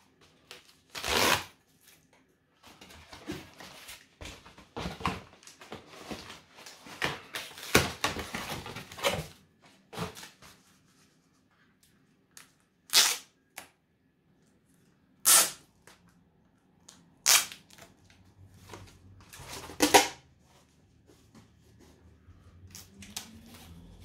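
Packaging being handled and unwrapped: irregular rustling and crinkling, broken by several short, sharp crackles or rips.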